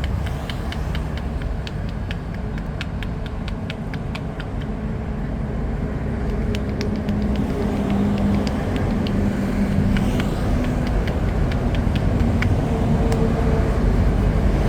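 Street traffic: a steady rumble of passing vehicles, with an engine hum that swells in the middle, and many short, light clicks or taps scattered through it.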